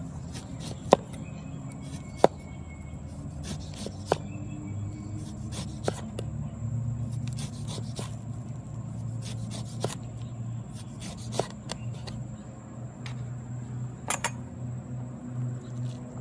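A cleaver knocks against a wooden cutting board as it slices through a lemon: about seven sharp knocks, irregularly spaced a second or two apart, over a steady low hum.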